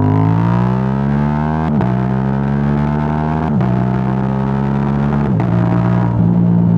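Yamaha R7's 689 cc parallel-twin engine through a Yoshimura AT2 full exhaust, pulling under throttle with three quick upshifts, each a brief cut and drop in pitch, about two seconds apart.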